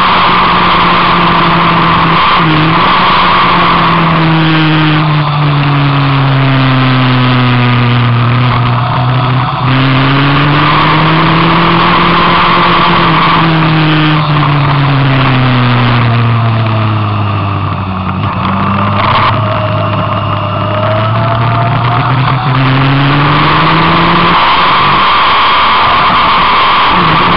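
Onboard sound of a vehicle lapping a race track: its engine note sinks and climbs in long sweeps as it slows for corners and accelerates out, dropping to its lowest about two-thirds of the way through and rising again near the end. A loud, steady rushing of wind runs underneath.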